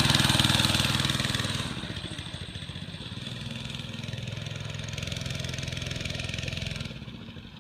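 Mini bike's small single-cylinder four-stroke engine running as the bike moves off. It drops in loudness about two seconds in, holds steady, then fades near the end. The owner thinks the bike might need a new clutch.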